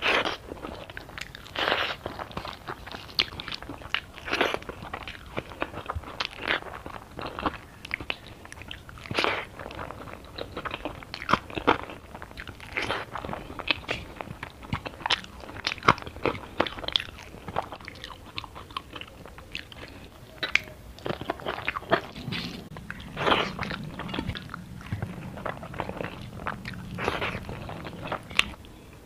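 Close-miked eating: irregular crunching bites and chewing of a hand-eaten Bengali rice-and-curry meal, with a crunch every second or so.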